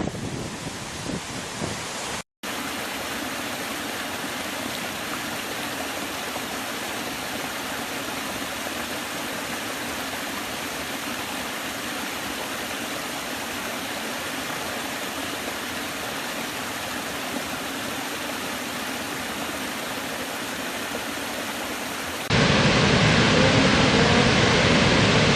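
Steady rushing of falling water from waterfalls. There is a brief dropout about two seconds in, and near the end the sound jumps suddenly to louder, fuller water as the footage cuts to another fall.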